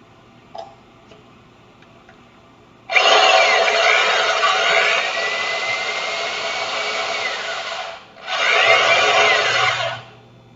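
Power drill spinning the shaft of a metal hand coffee grinder, grinding coffee: a few light clicks, then about five seconds of loud grinding with the drill's whine rising and falling, a brief stop, and about two seconds more.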